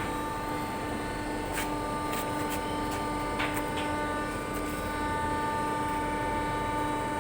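Galvalume roofing-sheet forming machine running with a steady hum and a constant whine, with a few faint clicks.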